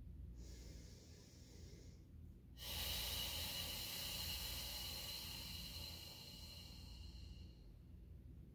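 A woman breathing deeply: a short, soft inhale, then a long, louder exhale of about five seconds that fades out.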